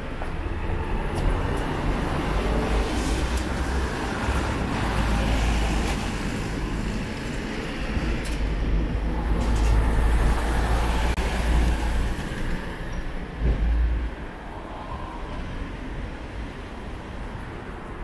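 Road traffic passing: steady vehicle noise with a deep low rumble, which eases off about fourteen seconds in.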